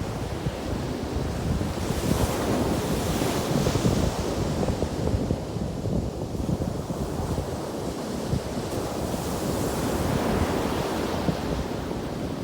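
Ocean surf breaking and washing on a beach, with wind buffeting the microphone as a steady low rumble. The hiss of the breaking water swells twice.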